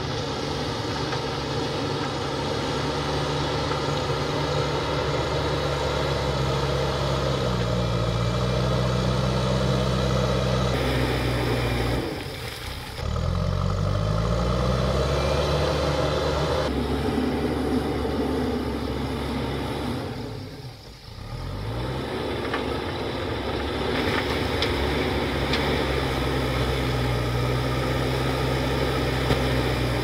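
JCB backhoe loader's diesel engine working under load, its pitch rising and falling as the machine drives and pushes rock and soil with its front bucket. The engine sound dips briefly twice.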